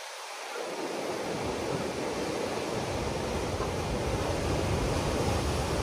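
Ocean surf breaking and washing over rocks as a steady rushing, with wind rumbling on the microphone. The low rumble swells in over the first second or so.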